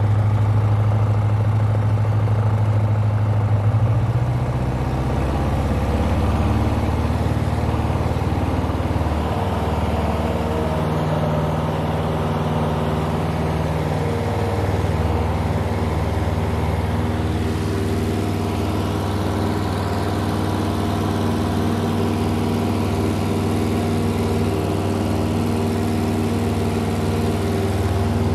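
Cessna 140's air-cooled four-cylinder piston engine and propeller running steadily at takeoff power through the takeoff roll and climb-out.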